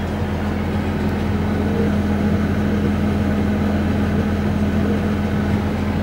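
New Holland T7050 tractor's diesel engine running steadily under load while pulling a plough: a constant drone with a strong low hum, rising slightly about a second in.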